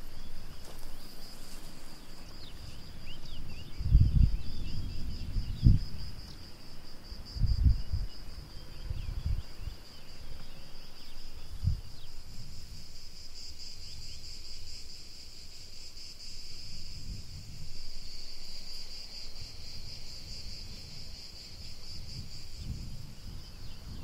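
Insects chirring in a steady, high, finely pulsing trill, with a few faint bird chirps in the first few seconds. Several low thumps, the loudest sounds, come between about four and twelve seconds in.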